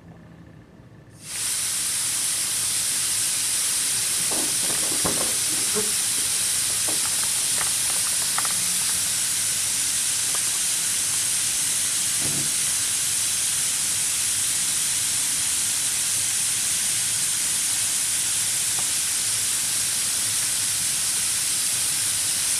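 Compressed air blowing steadily from an air nozzle: an even hiss that starts suddenly about a second in and holds level, with a few faint clicks in the first half.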